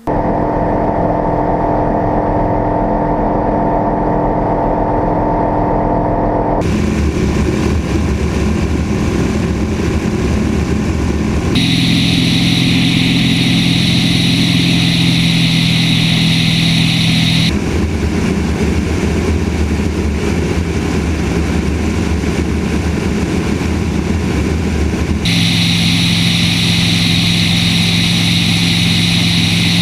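Light airplane's piston engine and propeller running at takeoff and climb power, a loud steady drone. Its tone shifts abruptly four times, at roughly 7, 12, 18 and 25 seconds in.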